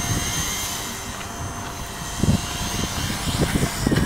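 Brushless Blade mCP X micro RC helicopter's motor and rotors whining high and steady, the whine weakening after the first second or two. Wind buffets the microphone with low rumbling gusts.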